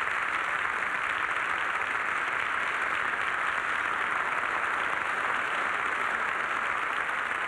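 Audience applauding, a dense, even clapping that holds steady.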